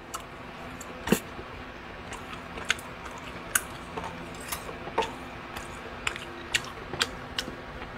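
Metal chopsticks and a spoon clinking and scraping against a pot of chicken soup while eating, with small sharp clicks every half second or so, the loudest about a second in, over a faint steady hum.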